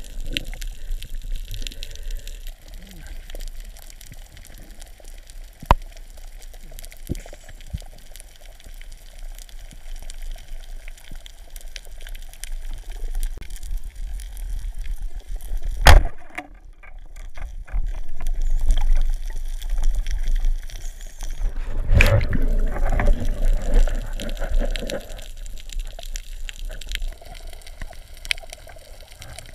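Underwater ambience picked up through a camera's waterproof housing: a steady wash of water movement with small clicks. A sharp knock comes about halfway through, and a second knock near three-quarters of the way is followed by a few seconds of louder rumbling and bubbling.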